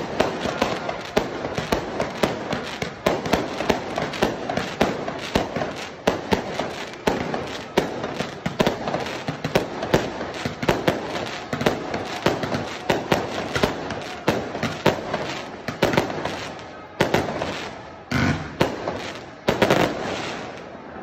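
Fireworks and firecrackers going off in rapid, irregular bangs over the noise of a crowd, with the bangs thinning out near the end.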